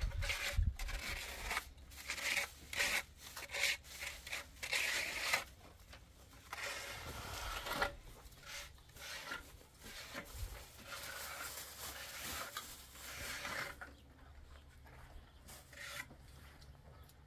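A trowel scraping over cement in repeated, irregular strokes as it spreads and smooths the mix. The strokes thin out and grow quieter in the last few seconds.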